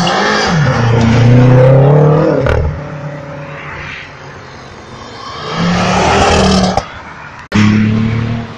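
Cars accelerating hard away one after another, each engine revving up and then fading; the loudest is about a second in. A sudden break near the end is followed at once by another loud engine.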